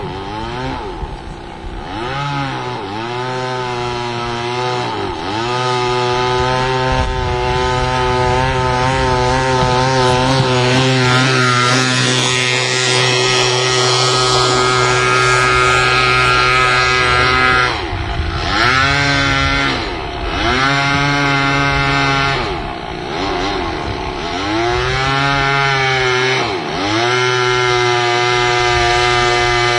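Two-stroke chainsaw engine powering a homemade radio-controlled speed boat, running at high revs. Its pitch dips and climbs back several times, most often in the second half.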